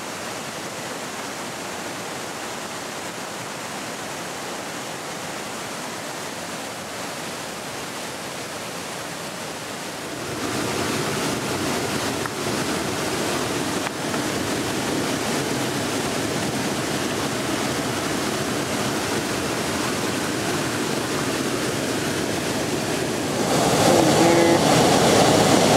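Steady rush of a mountain waterfall. About ten seconds in it turns closer, louder and more splashing as fast shallow stream water runs around a plastic gold pan being worked in it, and it grows louder again near the end.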